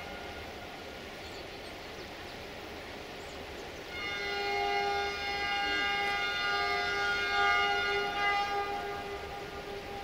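Electroputere 060-DA diesel locomotive's horn sounding one long, steady blast. It starts about four seconds in and fades out near the end.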